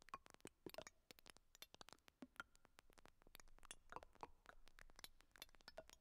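Faint electronic sound of many short clicks and glassy pings at irregular times, made from NMR spectroscopy data, standing for dissolved molecules being tossed around in a solution.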